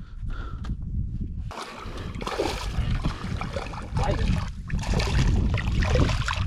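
Water splashing and sloshing around a small fishing boat: a steady rushing noise with a low rumble. It gets louder about a second and a half in, and again near the middle.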